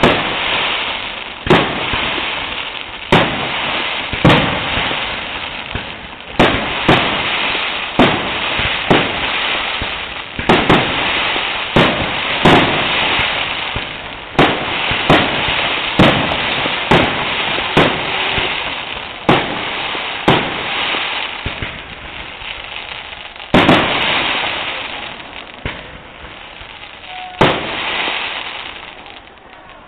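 Aerial firework shells bursting in a rapid series, sharp bangs about every one to two seconds, each trailed by a second or so of hiss as the stars burn out.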